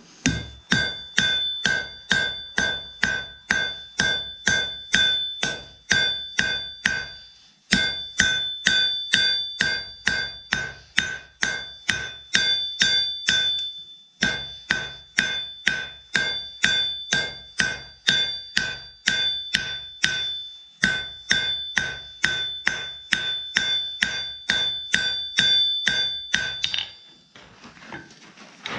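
Hand hammer striking hot steel bar stock on an anvil at a steady rhythm of about two blows a second, each blow ringing the anvil with a clear metallic tone: drawing out the stock. The hammering breaks off briefly three times and stops near the end.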